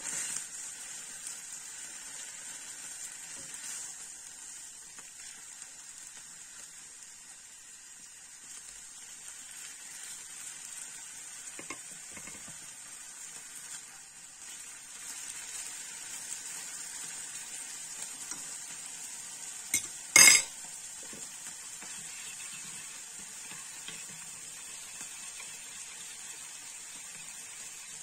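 Monkfish tails frying in oil in a pan with a steady sizzle. A metal utensil clinks sharply once about two-thirds of the way through, with a few lighter knocks before it.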